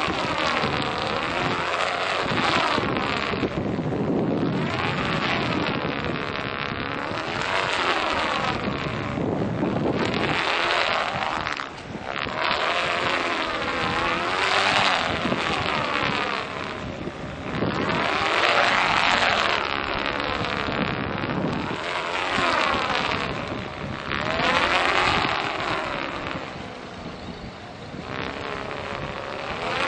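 Wind rushing over the microphone, mixed with the whooshing hum of a dual-line stunt kite's sail and lines as it swoops. The sound swells and eases every few seconds, with sweeping rises and falls in pitch.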